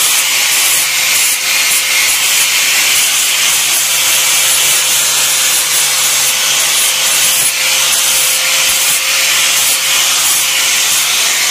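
Angle grinder grinding the leftover plasma-cut dross and rust that an acetic-acid soak did not remove off a thin steel sheet part. It gives a loud, steady grinding hiss over the motor's even whine.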